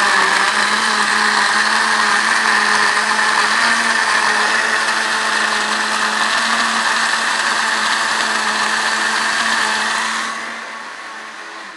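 Countertop blender running steadily at one speed, blending a jar full of milk, papaya and banana into a smoothie; about ten seconds in it is switched off and the motor spins down.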